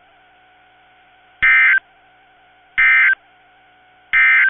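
Emergency Alert System end-of-message signal from a NOAA Weather Radio broadcast: three short, loud bursts of buzzy SAME digital data tones, each a fraction of a second long with about a second's pause between them, over a faint steady background hum.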